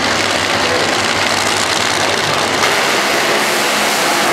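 Two supercharged, nitromethane-burning Funny Car V8 engines idling loud and steady at the drag strip starting line.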